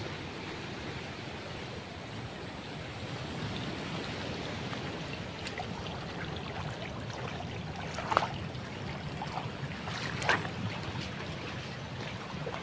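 Shallow stream running over gravel as someone wades across it on foot, with splashing steps; two sharper splashes stand out about eight and ten seconds in.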